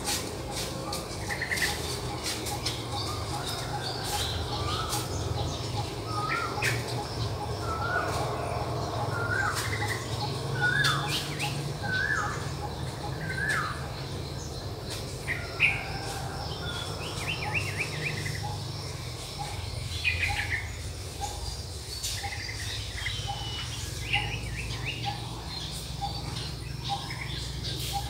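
Several wild birds chirping and singing. For a stretch, one bird repeats a short upward-hooked note about once a second. Beneath them runs a row of short, low pips and a steady low rumble.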